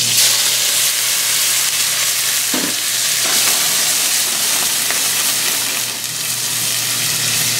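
White wine hitting a very hot sauté pan of clams, mussels, garlic and butter, hissing and sizzling hard as the pan flares up. The sizzle is loudest in the first second or two, then eases slightly and carries on steadily.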